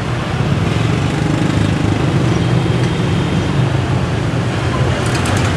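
Steady street traffic noise, a low rumble of passing vehicles, with a few sharp knocks near the end.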